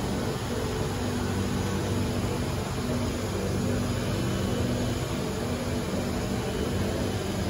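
Steady hum and airy hiss of an Alstom Metropolis C830 metro train standing at the platform with its doors open, its air-conditioning and onboard equipment running; a low hum comes and goes over the even noise.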